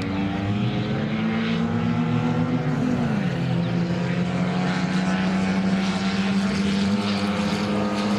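Engines of several 1100-category race cars running together at high revs, steady in pitch, with one engine dropping in pitch about three seconds in.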